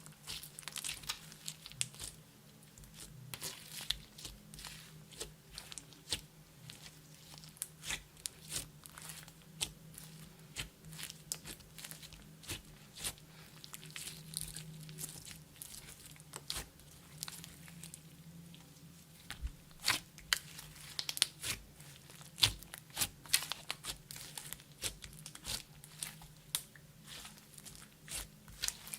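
Hands working clear slime with makeup and glitter mixed in, making irregular sticky crackles and clicks. They grow louder and more frequent about two-thirds of the way through, over a faint steady low hum.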